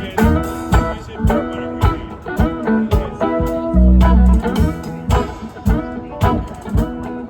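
A live blues-rock band playing an instrumental passage: electric guitars over bass and a steady drum beat, with a heavy low bass note about four seconds in.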